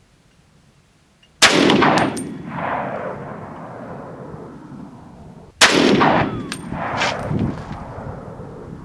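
Two rifle shots from a Saiga 308 semi-automatic rifle firing Remington 150-grain .308 Winchester rounds, about four seconds apart. Each sharp crack is followed by a long rolling echo that dies away over several seconds, with faint metallic ticks just after each shot.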